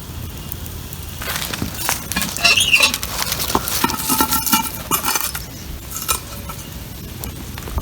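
Cookware and utensils being handled: a busy run of clinks, knocks and scrapes with some brief metallic ringing, starting about a second in and dying away near the end.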